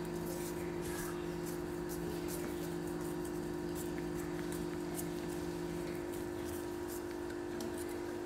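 Wire balloon whisk scraping and lightly clicking against a stainless steel bowl as it gently folds flour into whipped egg batter, a slow, soft stir. Under it runs a steady low hum, one of its lower tones stopping about six seconds in.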